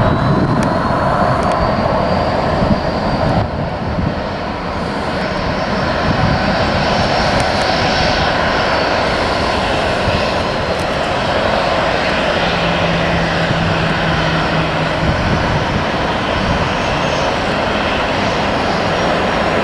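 Jet engines of a Boeing 737-800 airliner running steadily, with a faint high whine slowly rising in pitch over the first few seconds.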